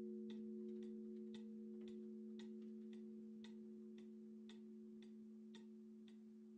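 Pendulum wall clock ticking faintly and evenly, about twice a second, over the slowly fading hum of a large bronze church bell's lingering tones.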